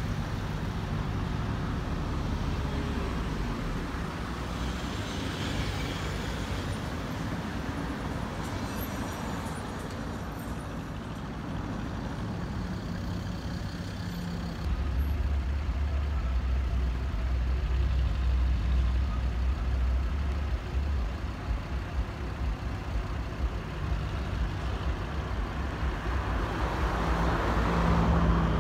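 Heavy vehicle traffic and diesel engines running on a road, a steady rumble. About halfway through, a deep engine hum gets louder and holds, as of a truck or machine running close by.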